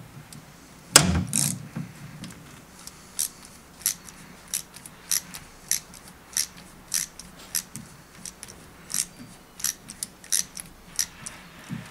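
Hand ratchet clicking as it turns a thread tap through flexible extensions, cutting threads by hand in a drilled hole. A louder knock comes about a second in, then single sharp clicks follow at an even pace, about one and a half a second.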